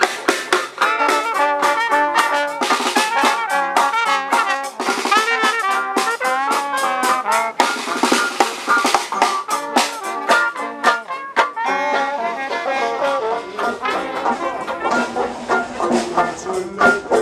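Brass band of trombones and trumpets playing a tune with drums, a serenade for a boat launch.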